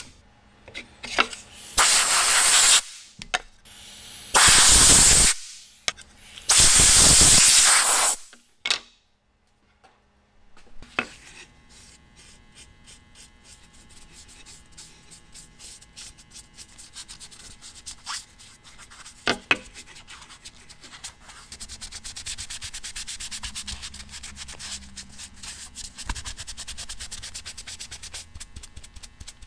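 Sandpaper rubbed over a wooden saw handle in three long, loud strokes. After a short silence comes a much softer, steady scratching of a brush spreading stain over the wood and gloved hands rubbing it in.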